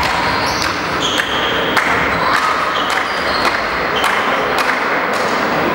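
Basketball play in a hall: players' shoes squeak in many short, high chirps on the court floor, with sharp ball bounces and thuds over a steady background din.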